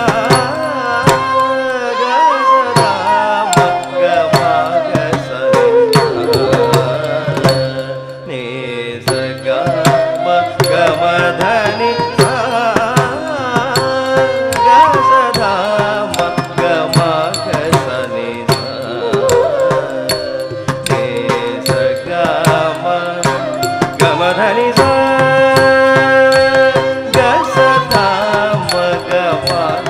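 Carnatic music for a Bharatanatyam jathiswaram in raga Hindolam: a pitched melody over dense percussion strokes.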